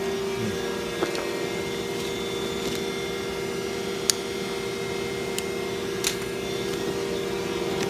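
Gas-fired copper-melting machine running with a steady hum, broken by a few sharp clicks.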